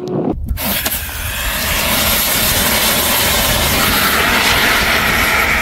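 Ougist aerosol car fire extinguisher going off in a fire, starting suddenly about half a second in and discharging with a loud, steady rushing hiss as its suppressant cloud puts out the flames.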